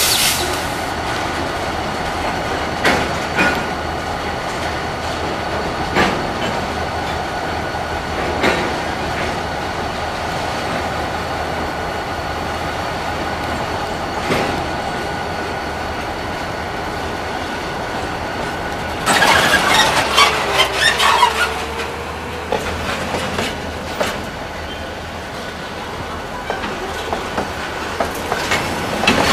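Diesel-hauled container freight train rolling slowly past: a steady rumble with high, held wheel-squeal tones and occasional clacks of wheels over rail joints. A louder, harsher stretch lasts about two seconds, about two-thirds of the way through.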